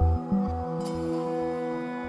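Background music: long held chords over a low bass note pulsing about twice a second.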